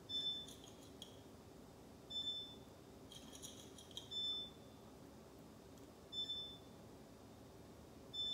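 Electronic beep from a kitchen appliance, a short high tone repeating about every two seconds. Faint clinks of a small knife against a plate come around half a second in and again about three seconds in.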